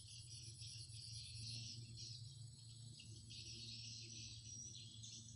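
Faint chorus of insects chirping in uneven pulsing bursts, with a faster, higher ticking insect call that stops about one and a half seconds in, over a low steady hum.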